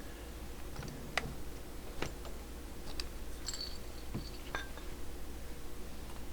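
Scattered light clicks and knocks of tools and radio parts being handled on a workbench, a couple in the middle carrying a short metallic ring, over a steady low hum.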